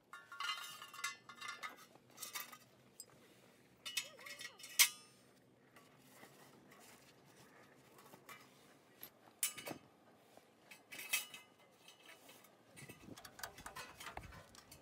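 Metal parts of a small camp wood stove clinking and clattering as they are handled and packed into a cloth bag, with a few sharp metallic clinks, the loudest about five seconds in. Near the end, footsteps crunch on gravel.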